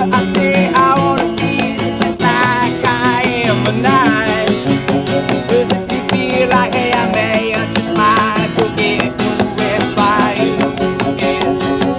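Background music: a song with a steady, even beat and a singing voice.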